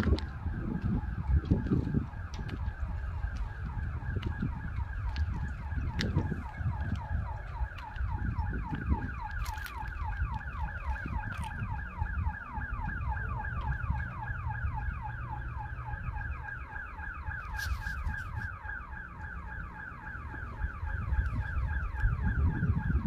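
An electronic alarm sounding without pause: a rapid warble of repeating pitch sweeps, several a second, over low rumbling noise.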